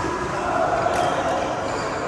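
Badminton play in a sports hall: steady hall noise with a faint racket hit on the shuttlecock about a second in.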